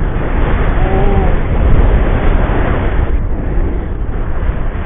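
Wind buffeting and rushing over the action camera's microphone during a tandem paragliding flight: a loud, steady roar heaviest in the low end.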